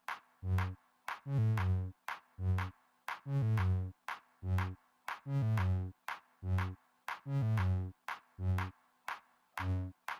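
Electronic background music with a steady drum-machine beat and synthesizer notes, about two beats a second.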